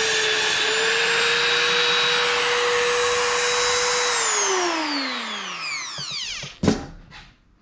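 Small electric motor of a Perf Angle tungsten sharpener running at a steady high speed while a 1.6 mm tungsten electrode is ground to a point on its diamond wheel. About four seconds in it is switched off and spins down with a falling whine, and near the end there is a sharp knock as the tool is set down on the steel table.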